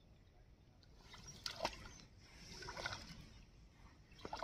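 Shallow river water splashing and sloshing as a man wades and works a fishing line by hand: a sharp splash about one and a half seconds in, a longer swish of water around three seconds, and a few more splashes near the end.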